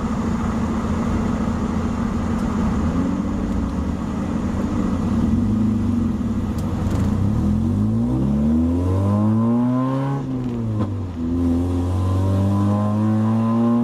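Mazda Miata's four-cylinder engine under way, running steadily at first, then revving up, with a sudden drop in pitch at a gear change about ten seconds in, and climbing again to hold a steady note.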